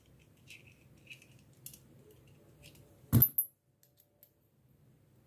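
Small threaded metal air-compressor fittings handled and fitted together: faint light ticks and scrapes, then one sharp metallic clink about three seconds in.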